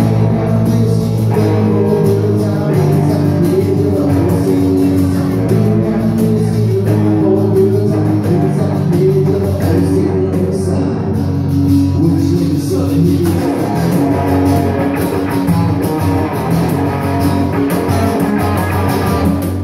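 Live southern rock band playing: strummed acoustic guitar, electric guitar, electric bass and cajon, with singing.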